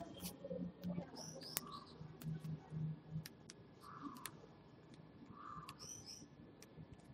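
Scattered soft clicks of the Nokia N900's slide-out keyboard keys being pressed one at a time, with a few short high chirps about a second in and again near the end.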